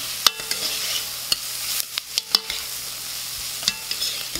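Diced onion, carrot and garlic sizzling in olive oil in an enamelled Dutch oven while being stirred with a metal spoon, which clacks against the pot several times. Garlic sautéing in the vegetables until fragrant.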